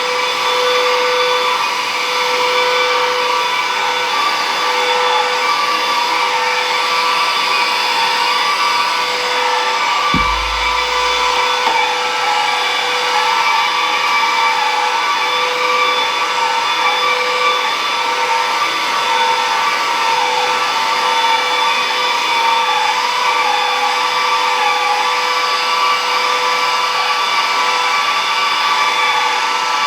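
Stick vacuum cleaner running steadily: a motor whine with several steady tones over the rush of air. A brief low thump comes about ten seconds in.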